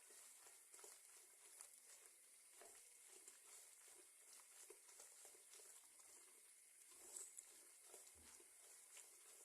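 Near silence: faint light irregular ticks over a steady soft hiss from a pan cooking on a gas stove.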